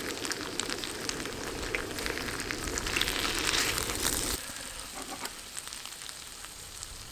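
Food frying in a pan: a steady sizzle with scattered crackles and pops. The sizzle swells briefly about three seconds in. Just after four seconds the steady lower noise under it stops abruptly, leaving softer crackling.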